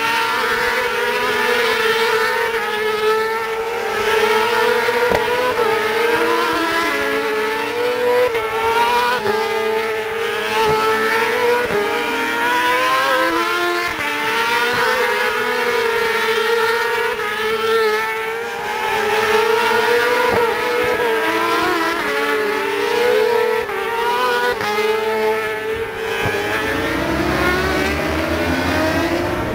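Pack of superbike racing motorcycles at high revs, many engines overlapping in a continuous, loud drone whose pitch wavers up and down as the bikes accelerate and pass.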